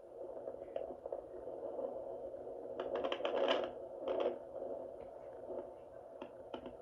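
Home fetal Doppler's speaker giving a steady static-like hiss as the gel-covered probe searches over the belly, with scratchy crackles about three and four seconds in. No fetal heartbeat is picked up.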